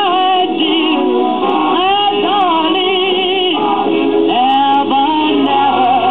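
A 78 rpm record playing through a 1947 Sears Silvertone model 7070 tube radio-phonograph with its rebuilt crystal cartridge: a vocal record, with a sung melody held in long wavering notes over the backing.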